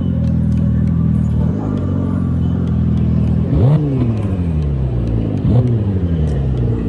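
Steady engine hum that revs up sharply and falls back slowly, twice.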